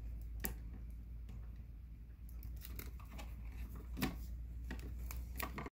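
Hand wire strippers snipping and clicking as insulation is stripped off electrical wire, a string of separate short snips with small rustles of the wire between them.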